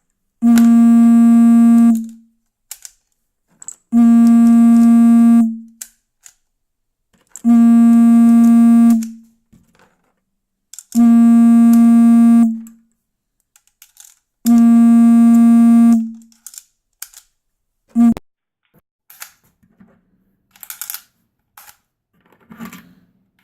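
A phone vibrating against a hard floor with an incoming call: five loud, steady buzzes about a second and a half long, one every three and a half seconds, then a sixth cut short about 18 seconds in as it is silenced. Faint clicks follow.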